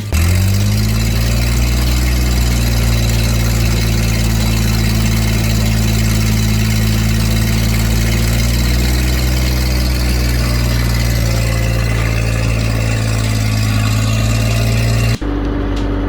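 An engine running steadily at constant speed, its pitch climbing and settling in the first second. About fifteen seconds in the sound breaks off abruptly into a different, quieter steady hum.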